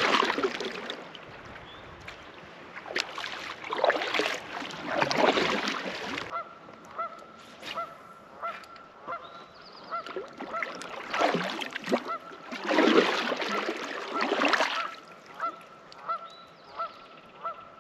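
Kayak paddle strokes swishing and splashing in the water, several times. From about six seconds in, a short, honk-like chirp repeats about twice a second.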